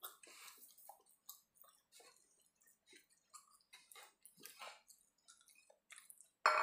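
A person chewing food with the mouth closed: soft, irregular wet smacks and clicks, close to the microphone. A sudden louder knock comes right at the end.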